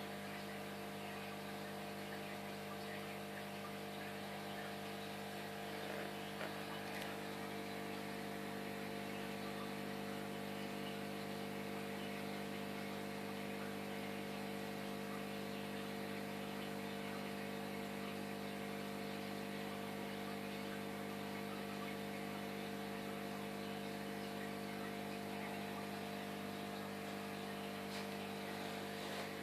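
Steady electrical hum from aquarium equipment, the air pump and filter, over an even hiss from the air-stone bubble curtain.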